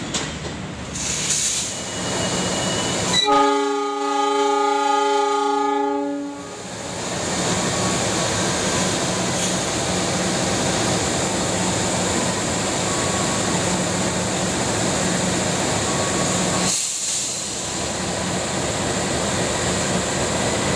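Train horn sounding one blast of about three seconds, a few seconds in. Then a KAI CC206 diesel-electric locomotive's engine running steadily close by.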